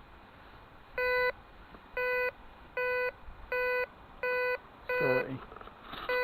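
Metal detector giving a target signal: seven short, steady, mid-pitched beeps as the coil sweeps over buried metal, a signal the detectorist reckons is probably a pull tab or bottle top. A brief falling call sounds about five seconds in.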